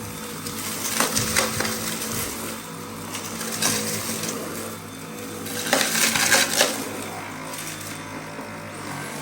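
Dyson V8 cordless vacuum cleaner running, with bursts of clattering and rattling as hard debris is sucked up: a cluster about a second in, a single rattle in the middle, and a longer, louder burst about six seconds in.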